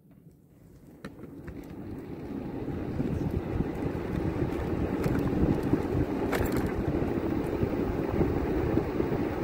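Rumbling wind and vehicle noise from moving along the road. It swells out of near silence over the first few seconds, then holds steady.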